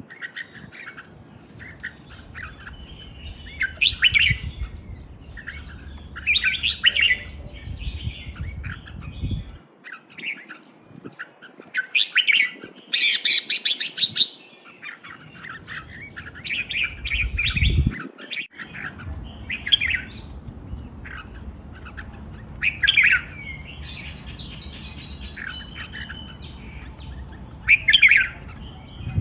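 Caged red-whiskered bulbuls singing: short, bright chirping song phrases repeated every second or two.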